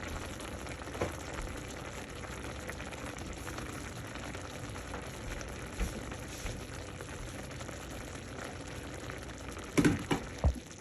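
Soy-marinated beef strips and onions sizzling steadily in a hot pan as they cook. A few sharp knocks come near the end.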